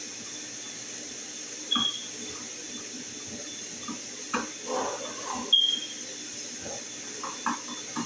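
A screwdriver turns the screws of a wall light switch in its electrical box, making a few short clicks and scrapes and two brief high squeaks, one about two seconds in and one about five and a half seconds in, over a steady background hiss.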